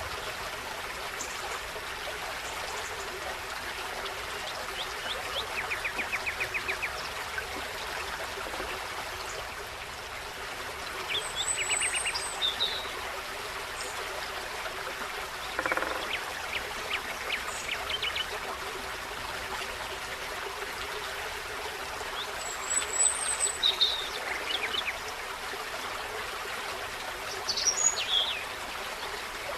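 Small forest stream running steadily, with songbirds calling over it: a quick trill about six seconds in, then short high chirps and whistles scattered through the rest. A single brief knock comes about halfway.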